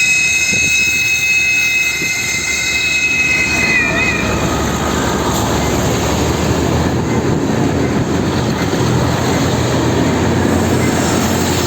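TCDD MT 5700 diesel multiple unit sounding its multi-tone horn in one steady chord that ends about four seconds in with a short wobble, followed by the train's loud rumble as it runs by.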